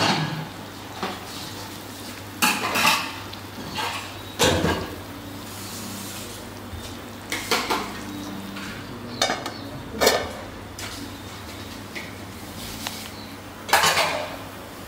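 Metal knocks and clinks against an aluminium cooking pot, several separate sharp strikes spaced unevenly, over a steady low hiss from the pot boiling on a gas burner.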